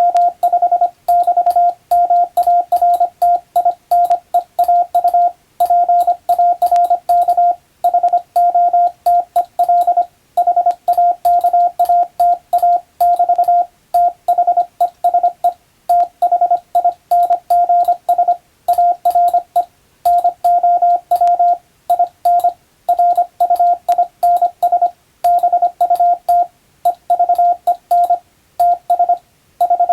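Morse code sent as a single steady tone of about 700 Hz keyed on and off in dots and dashes, in letter groups with short pauses between words: English-text radiotelegraph practice.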